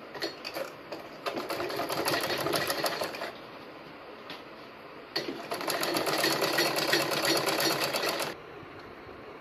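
Domestic sewing machine stitching in two runs of rapid, even needle strokes, the first about two seconds long and the second about three, with a short pause between. It is sewing a folded narrow cloth strip.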